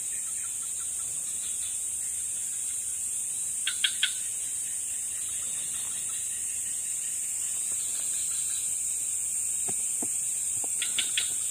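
Steady high-pitched chorus of crickets and other night insects, with a short burst of three quick chirps about four seconds in and again near the end. A few soft knocks come shortly before the end.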